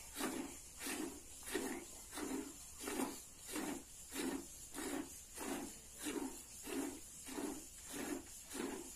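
Cow being milked by hand: streams of milk squirting into a pail in a steady rhythm, about three swishing squirts every two seconds.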